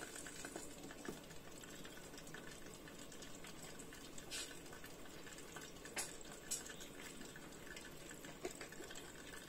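Pan-fried buns sizzling and bubbling in oil and water in an electric hot pot, muffled under its glass lid, with a few sharp pops and ticks.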